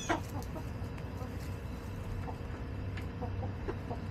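Hens clucking: one louder call right at the start, then a few short, soft clucks about three seconds in, over a steady low background hum.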